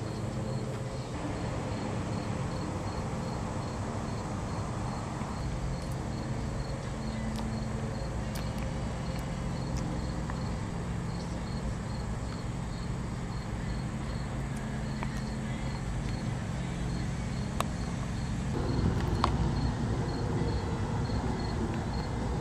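An insect chirping steadily, about three high pulses a second, over a steady low hum, with two faint clicks near the end.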